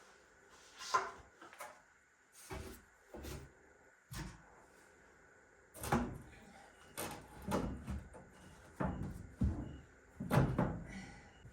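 Handling noises: about a dozen short knocks and clunks at irregular intervals, more frequent in the second half.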